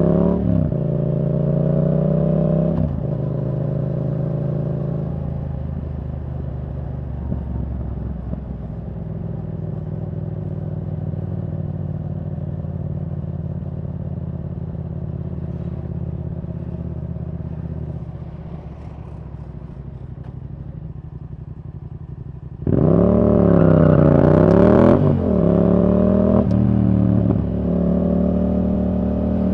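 Yamaha R7's parallel-twin engine through a Yoshimura R77 exhaust with the dB killer out, pulling at the start, then running steady and quieter at light throttle for most of the stretch. About three-quarters through the throttle opens sharply and the exhaust gets much louder, the revs swinging down and back up, with the note stepping down near the end.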